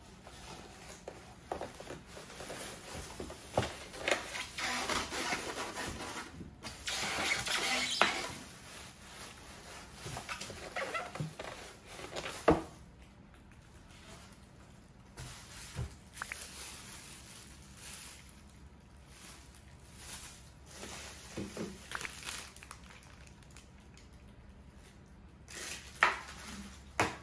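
Packaging being handled: a clear plastic bag crinkling and rustling and polystyrene foam packing being pulled off an espresso machine, in spells with quieter pauses between, plus a few sharp knocks.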